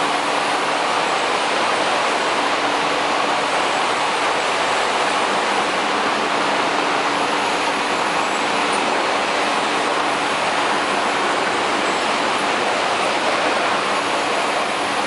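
Dryer outlet running: a steady rushing of air through the outlet bend, with a faint low hum underneath.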